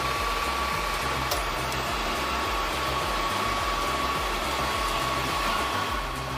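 Steady machine noise with a constant high whine over a low, shifting rumble.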